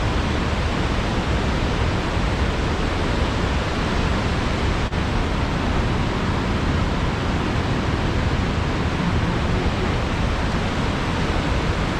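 Steady, loud rush of a waterfall or fast river, an even roar with no breaks except a momentary dropout about five seconds in.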